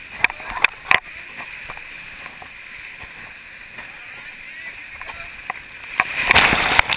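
Whitewater rapids rushing steadily around an inflatable raft, with three sharp paddle strokes in the first second. About six seconds in, a wave breaks over the raft's bow in a loud splash of water, the loudest moment.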